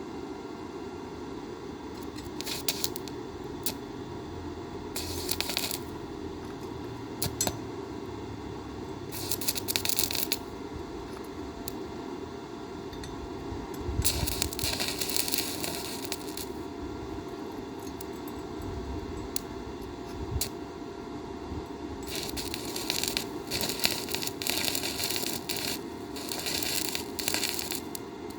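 Electric arc welding: the arc crackles and sizzles in several bursts lasting one to a few seconds, the longest stretch near the end, over a steady low hum.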